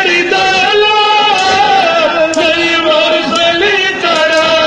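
A man chanting a mourning lament in long held, wavering notes, with the crowd of mourners joining in. Sharp slaps come about once a second: men beating their chests in matam.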